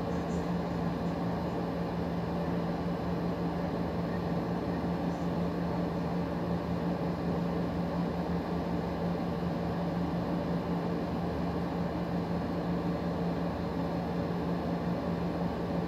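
Steady mechanical hum: a constant low tone over an even hiss.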